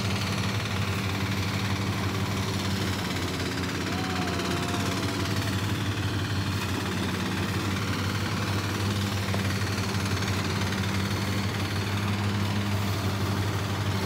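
Engine-driven rice thresher running steadily with an even, low hum while it threshes harvested rice.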